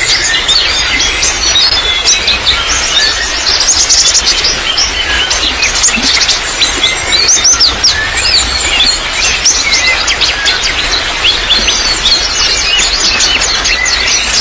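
Many small songbirds chirping and twittering in quick, overlapping calls over a steady trickle of water.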